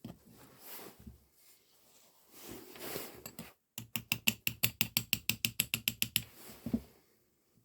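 Yamaha XJ600 clutch parts clicking rapidly as they are worked by hand to test the free play at a newly fitted pin: a quick, even run of about twenty metallic clicks, some eight a second, lasting about two seconds. Softer handling of the parts comes before it. Only a little play remains.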